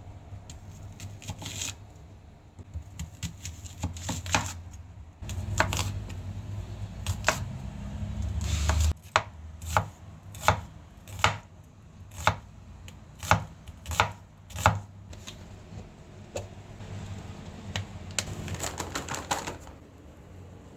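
Knife chopping food on a cutting board: a run of sharp strokes, about one or two a second through the middle, with scattered strokes before and a quicker burst near the end. A low hum builds and cuts off suddenly about nine seconds in.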